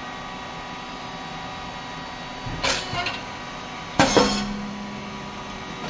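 Rice cake popping machine running with a steady hum from its hydraulic pump and motor, with a short burst of noise near the middle and a sudden loud burst about four seconds in that fades over half a second, as a batch of rice cakes pops from the heated moulds.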